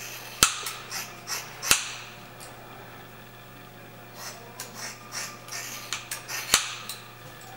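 Scissors snipping through long hair: a run of crisp snips, three of them sharp and loud, about half a second in, just under two seconds in, and near the end.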